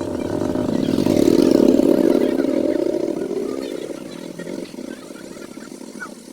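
A motor vehicle passing, its engine growing louder to a peak about two seconds in and then slowly fading away. Faint short chirps sound above it.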